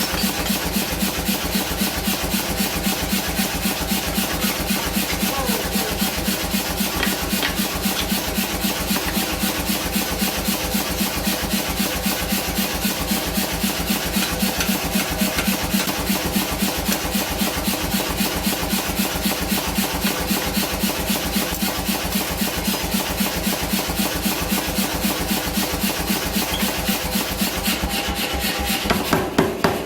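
Grinder working the H13 steel punch: a steady rasping with an even pulse of about five a second, stopping just before the end.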